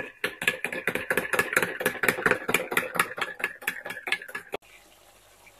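Metal spoon stirring sauce in a ceramic bowl, clinking against the bowl's sides about six to seven times a second with a ringing tone. It stops abruptly about four and a half seconds in.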